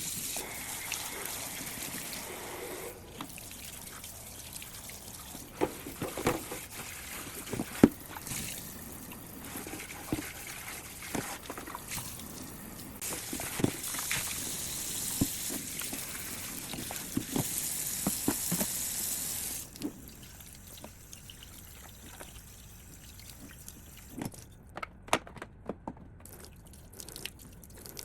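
Tap water running as vinegar-sprayed humidifier parts are rinsed out, with the parts knocking now and then. The water shuts off about two-thirds of the way through, leaving scattered clicks and knocks as the parts are handled.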